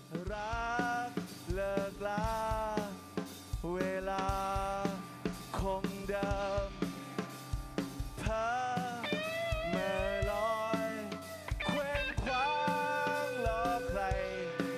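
Live rock band playing on stage: a drum kit keeps a busy beat of snare and kick hits, under a melody line that slides and wavers in pitch.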